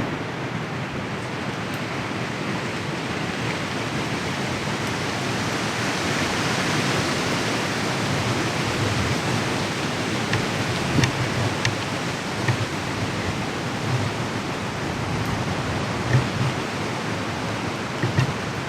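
Strong wind rushing steadily through trees, swelling and easing slowly, with a few soft thumps in the second half.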